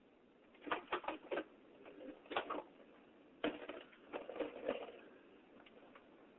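A series of irregular clicks and knocks, some in quick clusters, about a second in, near the middle and again around four to five seconds in.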